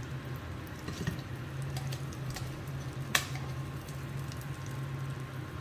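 Spring rolls frying in shallow oil in a pan, a soft steady sizzle, while they are lifted out with metal tongs, with sharp clicks about one and three seconds in, over a steady low hum.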